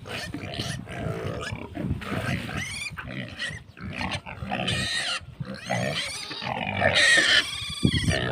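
Pigs grunting continuously, with louder, higher-pitched squeals around five and seven seconds in.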